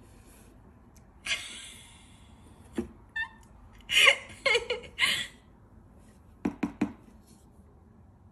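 Knocks and scrapes on a cardboard box, a few scattered over several seconds, ending in three quick knocks. A loud cluster in the middle has short voice-like sounds mixed in.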